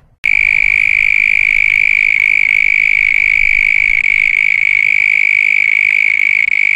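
A frog-like animal trill, one long high-pitched call held at a single steady pitch for about six and a half seconds, starting and stopping abruptly.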